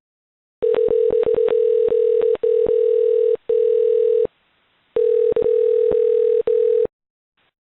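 Steady single-pitch telephone line tone, cut by several short gaps and peppered with sharp clicks, starting about half a second in and stopping near the end.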